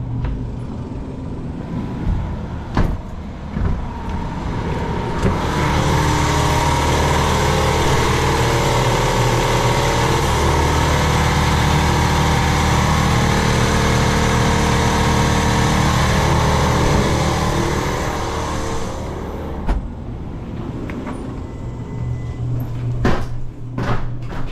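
Electric air compressor running steadily after its tripping breaker was reset, a constant machine hum that grows much louder for a long stretch in the middle and then eases back; the compressor running on with the breaker holding. A few sharp knocks near the start and the end.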